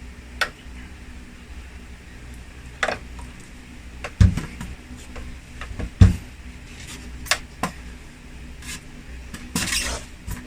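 Handling noise: scattered clicks and light knocks, with two heavier thumps about four and six seconds in, as things are moved around the burger and pancake maker.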